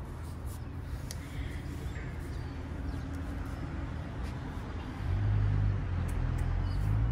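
Outdoor ambience with a steady low rumble that gets louder about five seconds in.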